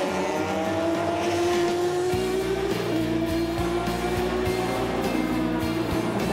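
Race car engines accelerating, their pitch climbing steadily, over background music whose low beat comes in about two seconds in.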